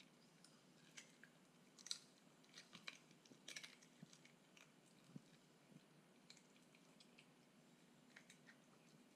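Small toy poodle chewing a piece of raw meat: faint, wet crunching clicks, thickest in the first few seconds and sparser later on.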